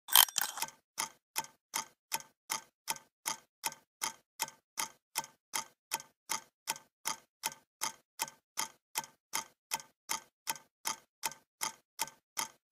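Steady clock-like ticking, about two and a half ticks a second, after a louder flurry of clicks at the very start.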